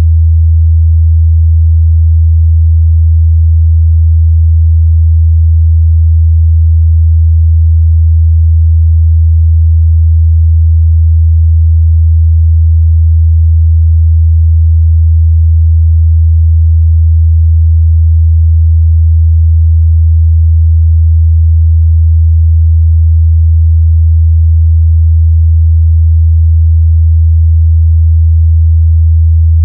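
Pure 81 Hz sine-wave test tone, a steady low hum held at a constant loud level, used for checking the mid-bass response of speakers and headphones.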